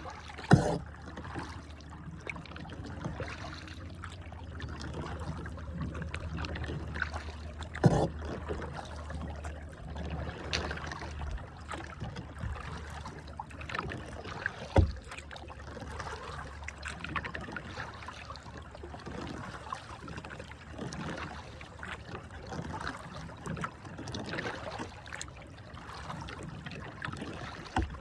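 Kayak paddling: water splashing and trickling with the paddle strokes, broken by three sharp knocks, about half a second, eight and fifteen seconds in. A low steady hum fades out about halfway.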